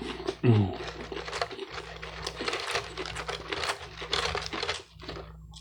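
Food packaging crinkling and rustling, with many small clicks, while eating. About half a second in there is a brief low vocal sound that falls in pitch.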